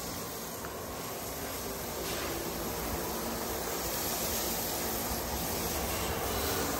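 Water spraying steadily from a hose onto the ground, an even hiss that slowly grows louder.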